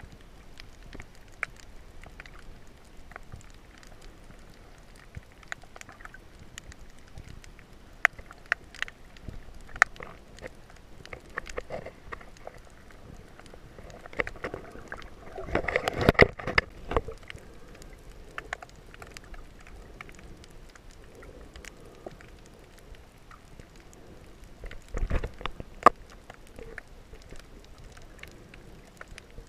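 Underwater sound picked up by a camera held below the surface: a low wash of water noise scattered with sharp clicks and crackles. The water noise swells into a louder churning burst about halfway through and again briefly with a deep thump near the end.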